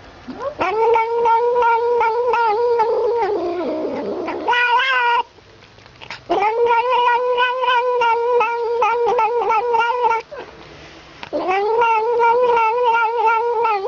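A cat making long, wavering, warbling cries while suckling milk from a feeding bottle. There are three drawn-out calls of about four seconds each, with short breaks between them, and a brief higher-pitched call after the first.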